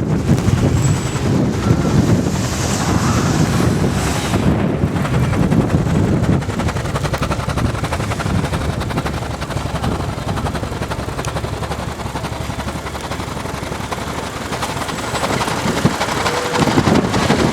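Blizzard wind buffeting the microphone: a loud, gusting low rumble that eases off in the middle and picks up again near the end.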